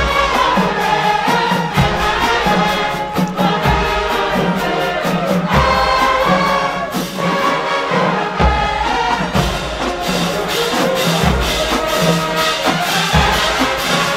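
HBCU marching band playing: the brass section holds full chords over deep bass drum hits and a steady run of drum and cymbal strokes.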